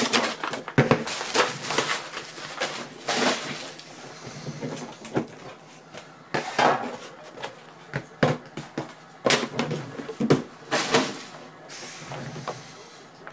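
Cardboard trading card box being handled and worked open: irregular scraping, rustling and knocks as the tight-fitting box is pried and slid out of its packaging.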